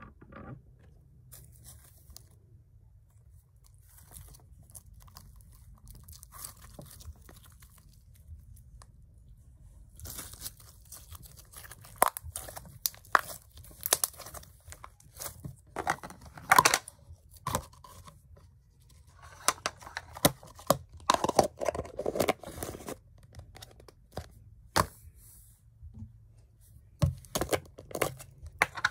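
Red slime being squeezed and kneaded by hand, giving sharp crackling pops from air pockets squeezed out of it. The sound is faint for the first several seconds, then comes in a dense run through the middle and returns near the end.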